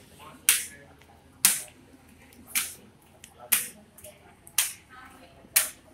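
Sharp hand claps keeping a steady beat, about one a second, six in all.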